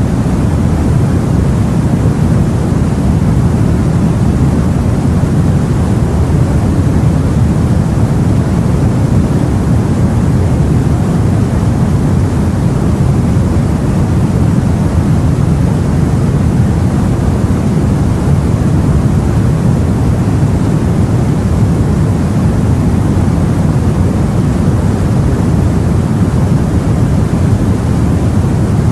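Steady, deep rushing noise of the sea heard aboard a boat, unbroken and without distinct wave crashes.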